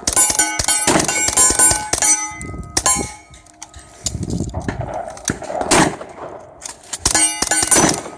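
Suppressed 9mm AR-15 short-barrelled rifle firing at steel targets: quick strings of shots, each hit making the steel plates clang and ring. There is a fast cluster at the start, single hits around three and six seconds in, and another rapid string near the end.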